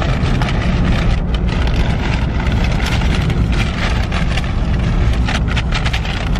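Steady low road rumble inside a moving car, with a paper takeaway bag rustling and crinkling as it is handled, most around the middle and near the end.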